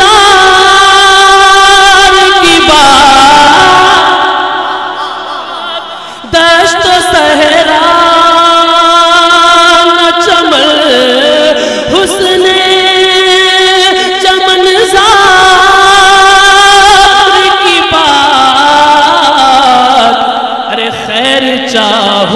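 A man singing a naat into a microphone in long, drawn-out notes with vibrato and melodic ornaments. The singing fades and breaks off about six seconds in, then carries on.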